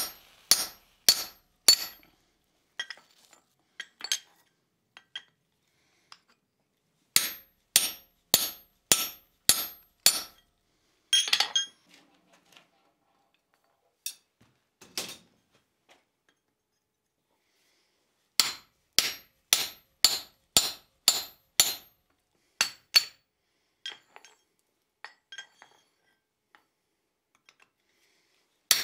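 Hand hammer striking a slitting chisel driven into a red-hot railroad spike on the anvil, slitting the eye. The blows come in runs of evenly spaced strikes, about two a second, with pauses between the runs.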